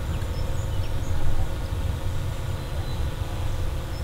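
DJI Mavic 2 Enterprise Dual quadcopter drone in flight, its propellers giving a steady buzzing hum made of many steady tones, over a low, uneven rumble.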